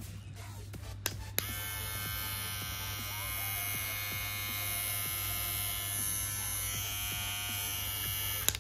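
Misfit by boAt T30 cordless hair trimmer switched on with a click of its button about a second in, its motor and blades buzzing steadily, then clicked off near the end.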